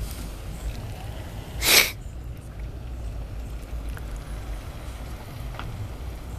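A huge wooden structure burning as a bonfire: a steady low rumble with faint scattered crackles. About a second and a half in comes one short, loud, sharp noise burst lasting a fraction of a second.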